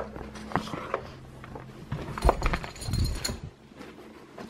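Belongings being handled and gathered up in a hurry: irregular knocks and clatters with a few light clinks, loudest between about two and three seconds in. A low steady hum underneath stops about two seconds in.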